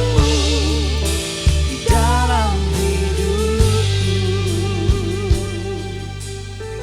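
Worship band playing a slow song: a singer's voice with vibrato wavers over a sustained bass and instruments, with a few scattered drum hits.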